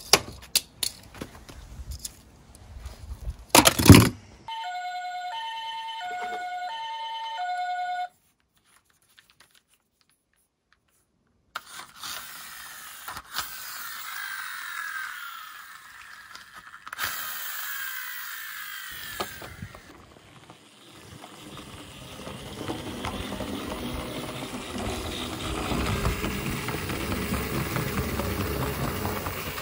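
Toy cars clattering into a cardboard box with a loud knock, then a two-tone ambulance siren alternating high and low for a few seconds. After a silent gap comes the whirring of a friction-motor toy wheel loader, its wheels spun by hand and winding down in falling sweeps, then a rolling noise that grows louder near the end as the toy runs on the wooden board.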